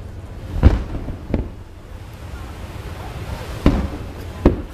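Fireworks shells bursting: four sharp booms, two in the first second and a half and two more near the end, each trailing off in a short rumble.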